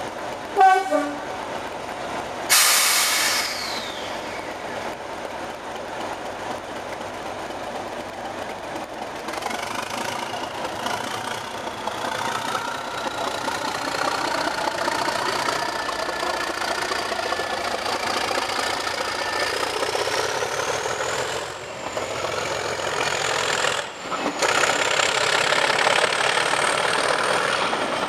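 English Electric Class 37 diesel locomotive 37324 pulling away under power, its turbocharger whistle rising steadily in pitch as the engine opens up. A short loud blast comes about two and a half seconds in.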